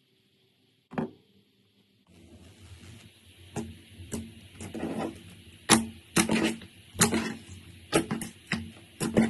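Slime being pressed and squeezed by hand: one sharp click about a second in, then from about two seconds on a run of irregular squishing pops and clicks.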